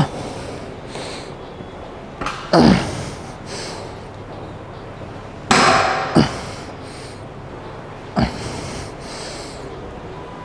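A man breathing out forcefully and hard, about four sharp exhalations a few seconds apart, as he strains through dumbbell 45-degree hip-extension reps. Steady background noise runs under them.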